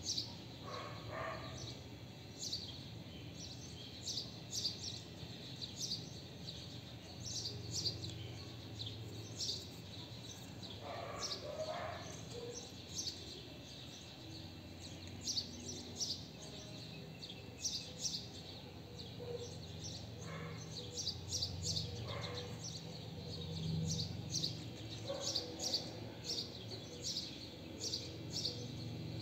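Small birds chirping, short high chirps coming every second or so, over a steady low background rumble.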